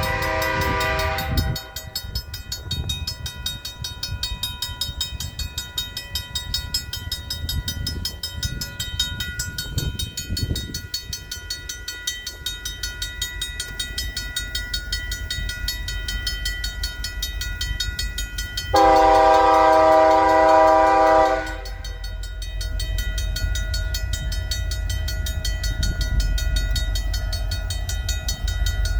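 Train horn sounding: a blast that ends about a second in, then one loud blast of about two and a half seconds near the twenty-second mark, over the low rumble of the approaching train, which grows toward the end.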